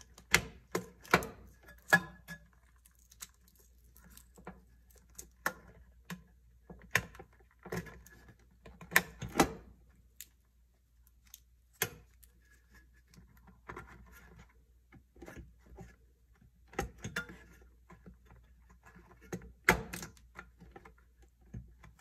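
Plastic wire-harness connectors being handled and pushed onto a refrigerator control board, giving a string of sharp clicks and knocks at irregular intervals, with faint rustling of wires between them.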